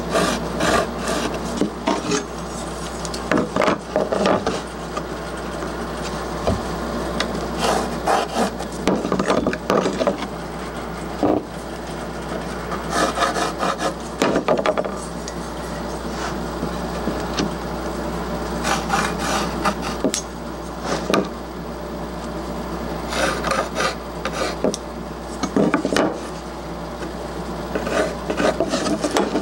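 Pencil scratching across plywood in bursts of short strokes with irregular pauses, drawing and darkening layout lines along a ruler, over a steady low hum.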